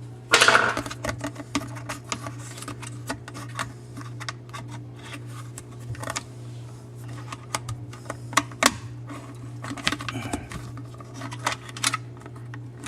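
Irregular small clicks, taps and rattles of hand work under a sink as the old garbage disposal's wiring is disconnected, with a louder clatter about half a second in. A steady low hum runs underneath.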